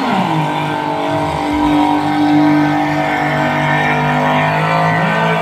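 Racing boat's engine at full throttle passing close by: its pitch drops sharply just at the start as it goes past, then holds a steady drone as it pulls away.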